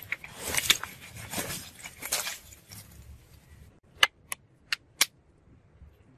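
Lumps of charcoal poured into a brick trench forge, clattering against each other and the bricks for about three seconds. Then four sharp single clicks about a third of a second apart as separate lumps drop in.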